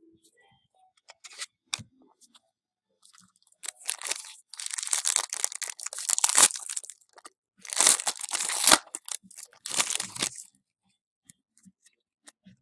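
Foil wrapper of a baseball card pack being torn open and crinkled, in three stretches of crinkling a few seconds long.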